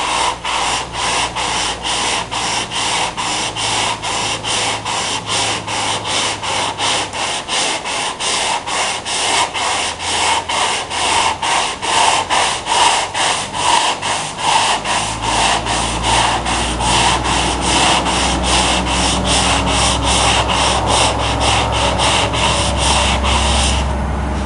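Hand block sanding of the body-filler fill coat on a car roof: sandpaper on a flexible foam-backed sanding block rasping back and forth in quick, even strokes, about two a second, stopping shortly before the end.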